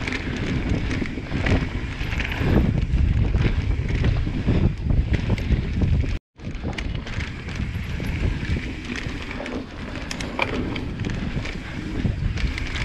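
Wind buffeting the microphone over the rattle and knocks of a mountain bike riding a rough trail. The sound cuts out for an instant about six seconds in.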